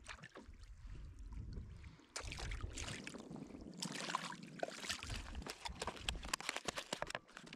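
Water splashing and sloshing around a kayak. About two seconds in it gets louder, with a quick run of sharp clicks and knocks.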